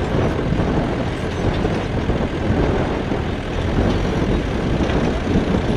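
Engines of light military utility vehicles running close by, a steady engine noise with no distinct knocks or shots.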